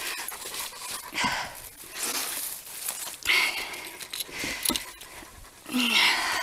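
A dog panting in uneven breaths, roughly one a second.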